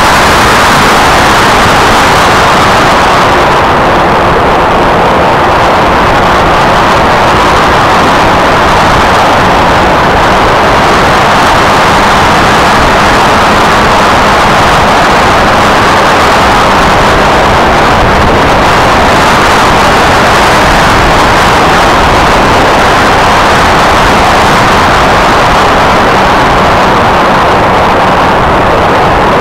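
Wind rush and the buzz of the F27C Striker's electric motor and pusher propeller, picked up by the plane's onboard camera, loud and near distortion. The hiss eases a few seconds in and swells again later, while a faint steady motor hum stays underneath.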